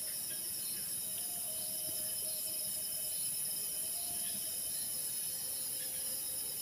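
Chorus of crickets and other night insects, several steady high trills layered at different pitches, some of them pulsing. A faint wavering lower tone runs beneath them.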